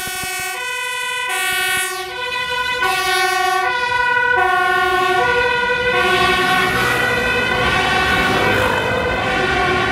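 Dutch fire service command van's two-tone siren, switching between a low and a high note about every three quarters of a second, with street traffic noise beneath it.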